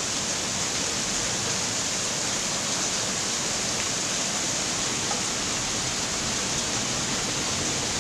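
Hailstorm: hail and rain pelting down without let-up, an even, dense hiss of countless small impacts.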